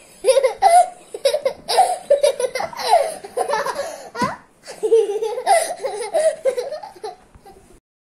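A young child laughing and giggling in repeated loud bouts, close to the microphone, cutting off abruptly near the end.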